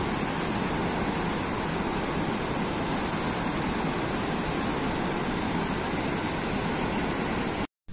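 Steady rush of river water pouring through an open sluice gate of a barrage, cutting off abruptly just before the end.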